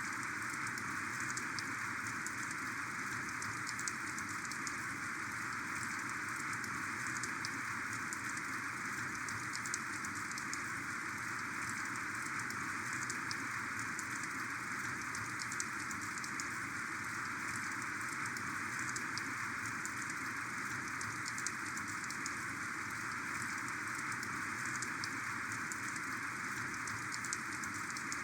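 Heavy, steady rain falling, with many small drop impacts ticking through the downpour and an occasional louder single drop.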